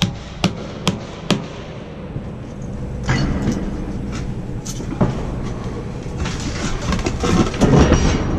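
Hammer blows, about two a second, stopping about a second and a half in; then a rattling, scraping clatter of material being handled, loudest near the end.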